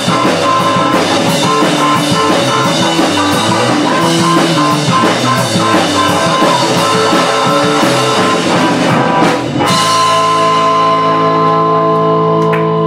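Rock band playing live: electric guitar, bass and drum kit. About ten seconds in, the drums stop and a final chord rings on, held steady.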